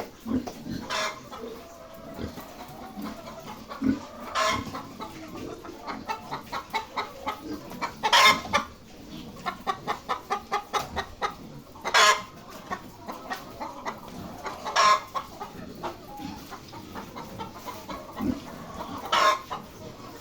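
Laying hens clucking in a poultry house, with a short loud squawk every three to four seconds and a run of quick, even clucks in the middle.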